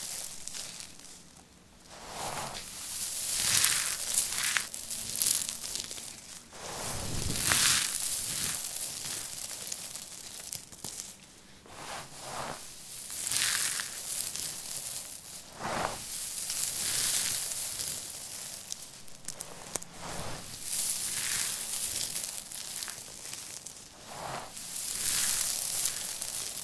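Dry shredded recycled soap crackling and rustling as handfuls are squeezed, crushed in the hands and let fall back onto the pile, in repeated waves one every second or two.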